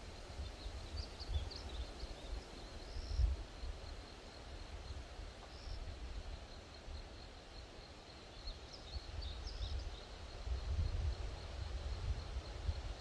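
Outdoor ambience: wind buffeting the microphone in an uneven low rumble, with a few short bird chirps and a steady high insect trill.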